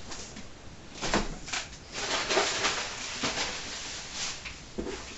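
Cardboard box and paper packaging being handled and opened: irregular rustling with a few knocks and scrapes.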